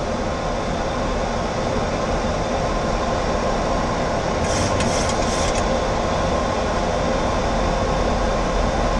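Steady cockpit noise on a Boeing 737-800 flight deck during descent on approach: a constant rush of air and machinery, with a few short high hisses about halfway through.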